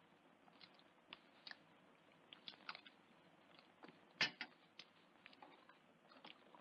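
Eating sounds: a spoon clicking and scraping against a frying pan, with chewing, and a sharper clink about four seconds in.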